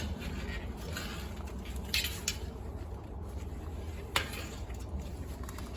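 Hands feeding an inner tube into a skinny road-bike tire on the rim: light rubbing and handling of rubber with a few sharp clicks, the loudest about four seconds in.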